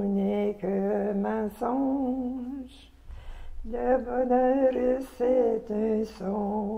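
A woman's voice singing a slow tune with no instruments, in held, wavering notes, with a short pause about three seconds in.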